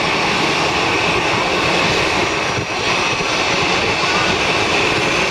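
Jet airliner engines running steadily: a high whine over an even rush.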